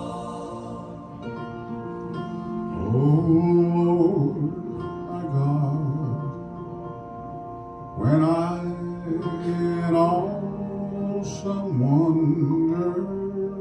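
A man singing a slow song solo into a microphone over sustained instrumental accompaniment. His voice comes in about three seconds in, in long held phrases, with fresh phrases starting about eight seconds in and again near the end.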